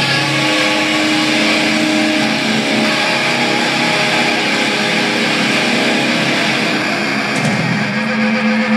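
Live rock band playing loudly, with distorted electric guitars holding sustained notes and chords. A new low note is struck and held about eight seconds in.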